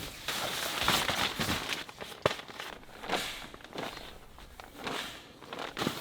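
Tent fabric rustling and crinkling as the tent is handled and pitched, with a sharp click about two seconds in.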